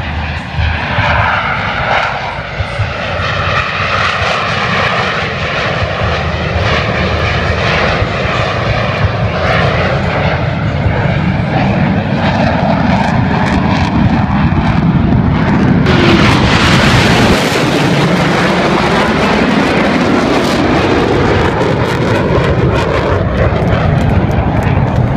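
Blue Angels F/A-18 Hornet jets flying past low, a loud continuous jet rush whose tone sweeps down and then back up as the aircraft pass. About sixteen seconds in it turns louder and hissier as a jet passes closer.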